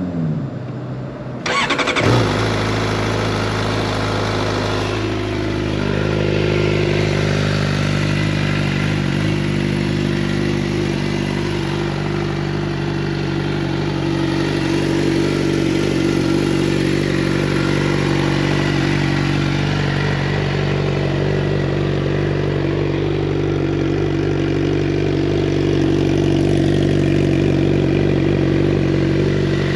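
2015 Suzuki GSX-R600's inline-four engine, fitted with an M4 slip-on exhaust, starts up about two seconds in and then idles steadily.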